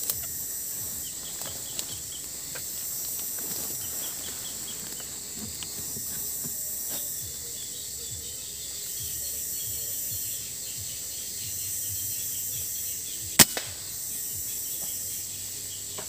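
Steady high insect chorus, broken about thirteen seconds in by the single sharp crack of an air rifle shot at a green imperial pigeon, with a fainter click just after.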